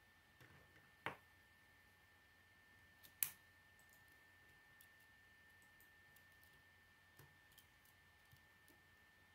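Plastic K'nex rods and connectors clicking as they are snapped together by hand: two sharp clicks, about a second in and a little after three seconds, with a few faint handling ticks between.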